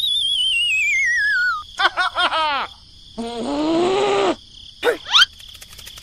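Cartoon sound effects: a long wavering whistle sliding down in pitch, a run of quick falling boing-like chirps, a squeaky cartoon voice that rises and falls, then two quick rising whistles near the end.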